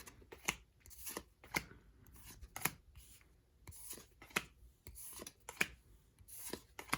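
Pokémon trading cards being flipped through by hand one at a time: a faint string of irregular card snaps and slides, about one every half second to second.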